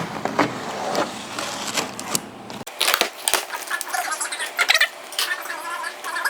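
Irregular handling noises: crinkling, clicks and squeaky rubbing. A low background rumble cuts off abruptly about two and a half seconds in.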